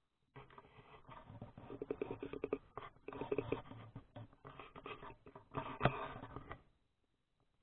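Rustling and rubbing handling noise on a small action camera's microphone, in uneven bursts with fast scratchy ticks, and one sharp click about six seconds in.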